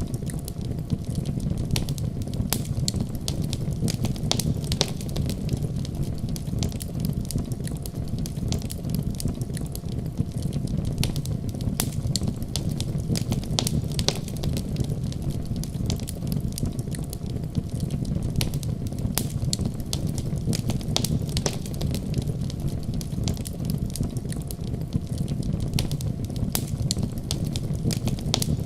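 Wood fire in a fireplace crackling, with frequent sharp irregular pops over a steady low rumble.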